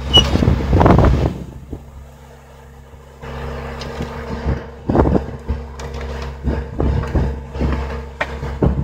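Bobcat S630 skid-steer loader's diesel engine running steadily while it powers a hydraulic tree spade whose blades are being driven into the soil. Loud gusty rushes of wind on the microphone about a second in and around five and seven seconds.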